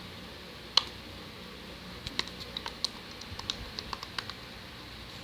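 Homemade slime being squeezed and played with by hand, giving a scatter of small, sharp, irregular clicks and pops, with one louder click about a second in.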